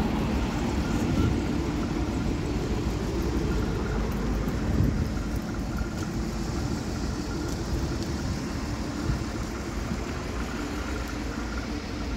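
A steady low rumble with a faint hum, like a vehicle engine running nearby.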